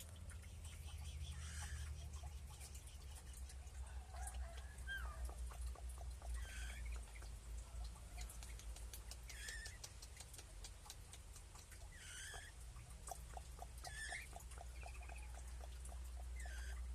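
Caged birds in an aviary giving a short, falling call about every two to three seconds, among scattered small clicks and ticks, with a quick run of even chirps a little after the middle; a steady low hum underneath.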